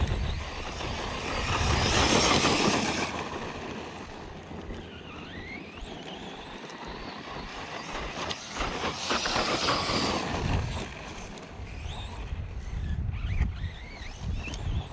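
Arrma Outcast 4S brushless electric RC truck being driven hard, its motor whining up and down in pitch, with two loud surges of acceleration, one about two seconds in and another around nine to ten seconds in.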